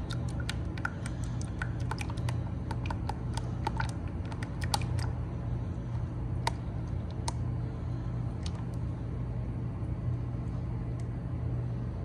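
Motor oil glugging out of a plastic quart bottle into a funnel: a run of small irregular clicks and gurgles that thins out after about five seconds, over a steady low hum.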